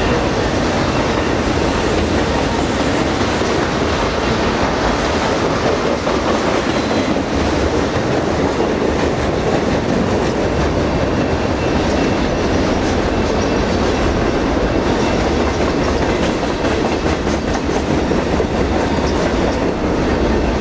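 Enclosed autorack freight cars rolling past: steady noise of steel wheels on the rails, with faint clicks as the wheels pass over the rail joints.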